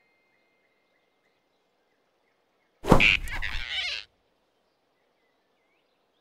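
Cartoon grab sound effect: a sudden whoosh and thump as the rabbit snatches the flying squirrel, with a short startled squeak from the squirrel, about three seconds in and lasting about a second.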